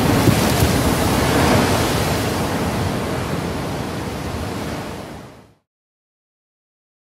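Steady rushing noise of a rough sea and wind, fading out about five seconds in to complete silence.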